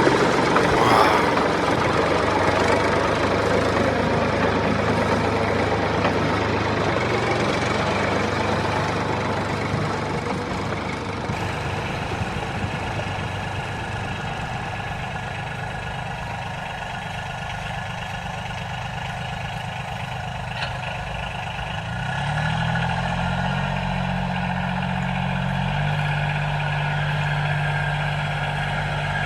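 The motor of a DIY miniature ploughing tractor running steadily, its pitch stepping up about 22 seconds in and then holding.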